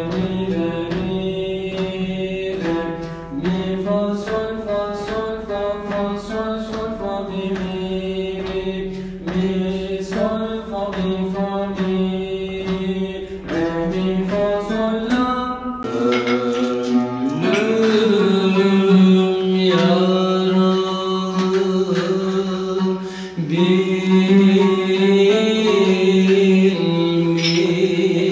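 A male voice singing a Turkish classical şarkı in makam Uzzal, holding and ornamenting long notes over instrumental accompaniment in a 5/8 rhythm. About halfway through, the recording changes to a fuller, brighter-sounding one.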